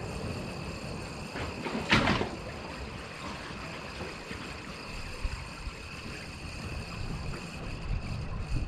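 Wind and sea water noise at a jetty, a steady low rumble with a faint steady high whine over it, and one short louder sound about two seconds in.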